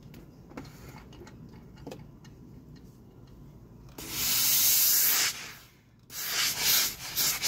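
Laurastar 535 steam iron releasing steam, very strong: after a few faint handling clicks, a loud hiss about four seconds in lasting just over a second, then several shorter bursts near the end. The iron has reached working heat and is giving steam.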